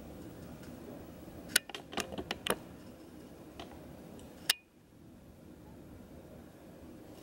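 Craft knife scraping and nicking at a small white carved figurine: a cluster of sharp clicks and scratches around two seconds in and one louder click a little past the middle, over a steady room hiss.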